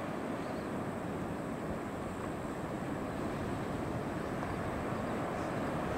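Steady wash of ocean surf on a rocky shore, an even noise without distinct events.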